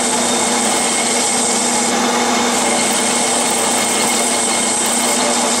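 Clausing metal lathe running at 400 RPM while a cutoff tool plunge-cuts a groove into a spinning aluminum pulley blank: a steady machine hum with the hiss of the cut.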